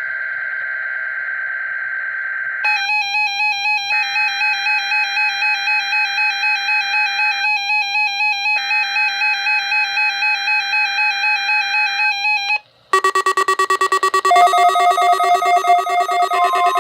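NOAA Weather Radio weekly test alert tones: three long bursts of buzzy digital data tones, with an electronic alarm beeping about four times a second over them from a few seconds in. After a brief break near the end, a faster, higher electronic alarm tone starts up.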